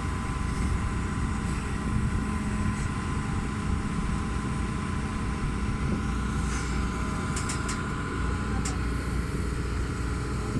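Hitachi backhoe's diesel engine running steadily, with a few short knocks about two thirds of the way through.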